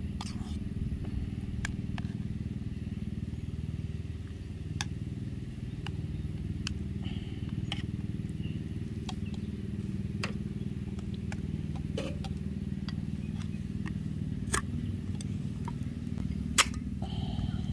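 A steady low mechanical drone runs throughout, under light metallic clinks of a spoon stirring in a small metal camping pot and scooping from a tin can. Near the end there is one sharp click as a pull-tab can is cracked open.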